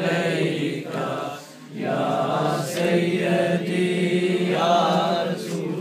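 A group of men chanting salawat, blessings on the Prophet, together in a repeated sung phrase, with a short pause for breath about a second and a half in.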